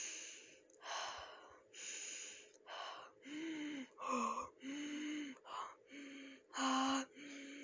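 A person breathing in and out deeply and audibly, about ten short breaths, several with a hum of voice in them.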